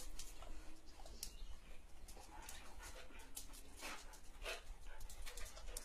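A dog eating from a plastic slow-feeder bowl, with irregular clicks, a few of them louder.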